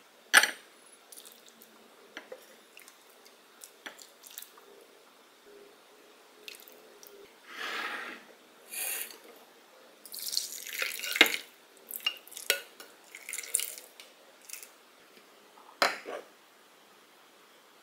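Soup being poured and ladled into ceramic bowls: the broth splashes and drips, with sharp clinks of the metal ladle and pot against the bowls. The loudest clink comes about half a second in.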